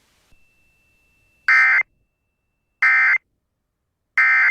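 Emergency Alert System end-of-message data code: three identical short bursts of buzzy digital data tones, each about a third of a second long and a bit over a second apart, marking the end of the broadcast alert.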